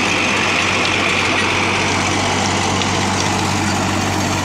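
Sonalika DI 745 III tractor's diesel engine running steadily under load, driving a rotavator that churns a standing chilli crop into the soil.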